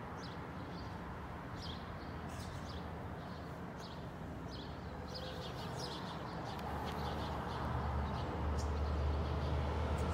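Small birds chirping in short, scattered calls over a steady street background, with the low rumble of a vehicle growing louder over the last few seconds.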